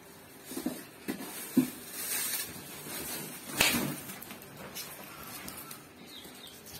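Cardboard shipping box being handled and searched: three short dull knocks and a rustle in the first two seconds, then a sharper scrape of cardboard about three and a half seconds in.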